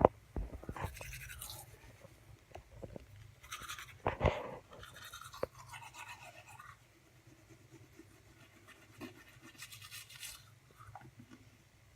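Teeth being brushed with a toothbrush, in several short spells of scrubbing, with a loud knock about four seconds in.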